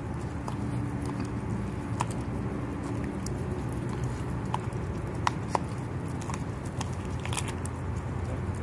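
Dog chewing and biting into a whole raw fish, with scattered wet crunches and sharp clicks as it tears at the flesh and bones. A steady low hum runs underneath.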